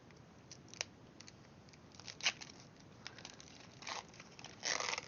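Foil wrapper of a Pokémon TCG booster pack being handled and torn open by hand: scattered light clicks and crinkles, with short crinkling bursts about two and four seconds in and a longer one near the end.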